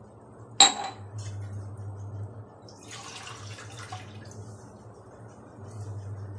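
Two glasses of water being poured into a cooking pot for a kashayam: a ringing clink about half a second in, then the pour, loudest around three seconds in.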